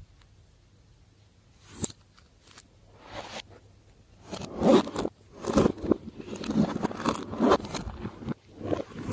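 Hands kneading and pressing slime, making sticky squishing and crackling sounds in a run of presses that starts about three seconds in, after a quiet start broken by a single click.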